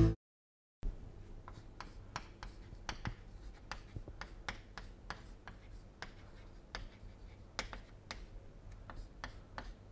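Chalk writing on a chalkboard: a string of short taps and scratches as the letters go on, over a low steady room hum. It begins after a moment of silence just under a second in.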